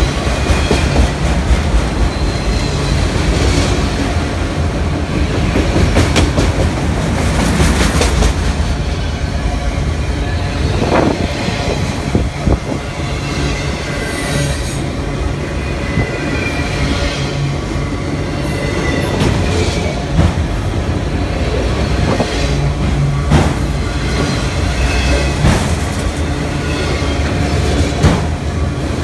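Freight train of autorack cars and boxcars rolling past close by: a loud, steady rumble of steel wheels on the rails, with repeated clacks at the rail joints and some high wheel squeal.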